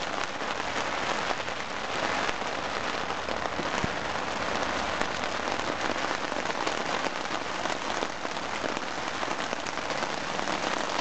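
Steady rain falling on the fabric of a small tent, heard from inside: a dense, even spread of drop impacts that does not let up.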